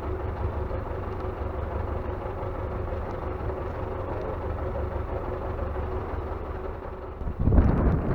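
A motor vehicle's engine idling steadily as a low rumble. About seven seconds in it gives way abruptly to louder gusts of wind buffeting the microphone.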